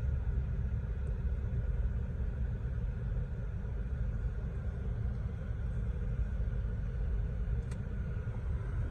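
Nissan X-Terra's engine idling, heard from inside the cabin as a steady low rumble, with one faint click near the end.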